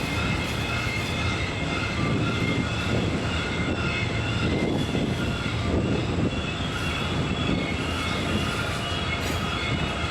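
Coal train hopper cars rolling steadily past on a sharp curve: a continuous rumble of wheels on rail, with steady high-pitched flange squeal from the wheels.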